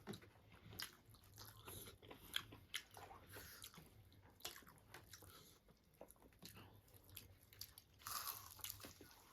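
Close-miked chewing and biting of food, with crisp, irregular crunching clicks.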